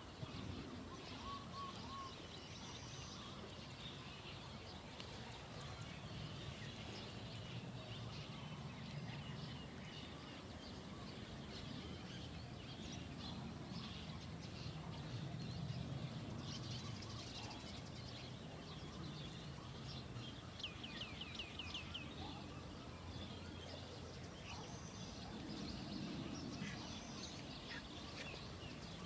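Rural outdoor ambience: birds chirping and calling, with a rapid trill about two-thirds of the way through, over a low steady rumble that swells around the middle and again near the end.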